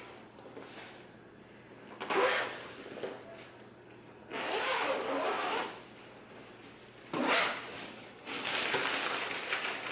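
Zipper of the softbox kit's fabric carrying bag being pulled open in four separate pulls, the longest about a second and a half.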